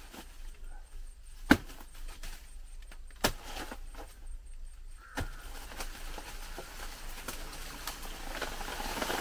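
Three sharp knocks, each about two seconds apart, the first the loudest, over faint background noise.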